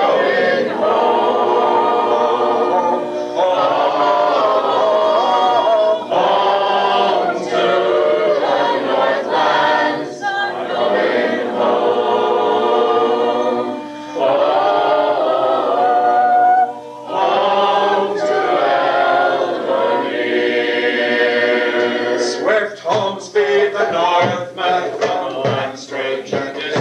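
A choir singing a cappella in harmony, with long held notes. Near the end the singing breaks into shorter, choppier phrases.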